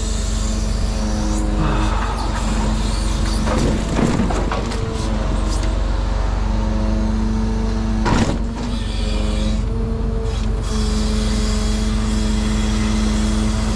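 Truck engine running steadily to drive a Palfinger timber crane's hydraulics while slab wood is loaded, with wood clattering about four seconds in and again about eight seconds in.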